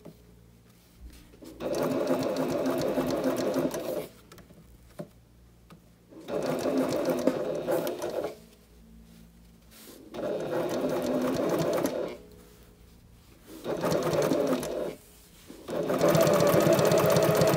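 Domestic sewing machine running a basting stitch in short stop-start bursts, five runs of one to three seconds each with quiet pauses between, as piping is sewn around a corner.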